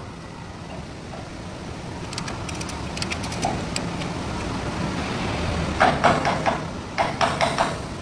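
Hammer blows on steel during ship fit-up work. A steady low rumble slowly builds, then a quick run of sharp knocks starts about six seconds in.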